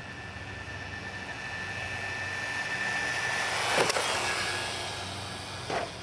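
Battery-powered radio-controlled cars running flat out on asphalt, their electric motors making a steady high whine that grows louder as they approach and passes close about four seconds in. A short clatter near the end as the cars hit the curb.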